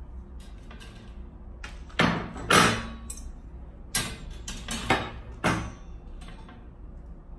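Chrome-plated steel dish drainer rack parts, its curved frame pieces and wire baskets, clinking and knocking against each other and the table as they are handled. There are about five sharp metal knocks with a brief ring, the loudest two close together about two seconds in.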